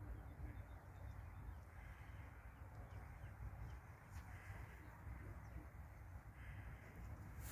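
Faint outdoor ambience: a low, uneven rumble on the microphone under a quiet hiss, with no clear call or knock standing out.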